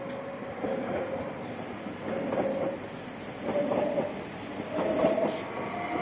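Stadler FLIRT electric multiple unit moving along the station track, its traction drive whining in a tone that climbs in steps, over the rumble of wheels on rail.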